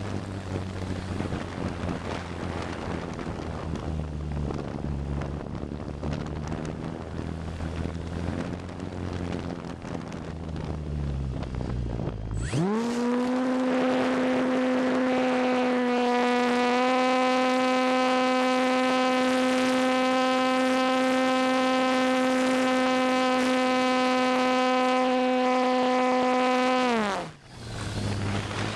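Electric RC airplane motor and propeller heard from a camera on board the plane. For the first dozen seconds there is wind rushing over the camera with a low, wavering motor hum. About halfway in, the motor runs up to a loud, steady high-pitched whine with many overtones, holds it for about fifteen seconds, then cuts off suddenly and the wind rush returns.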